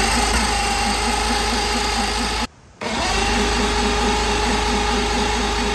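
Boat motor's electric starter cranking the engine without it firing, because the tank has no fuel. It is a steady whine that stops briefly about two and a half seconds in, then cranks again.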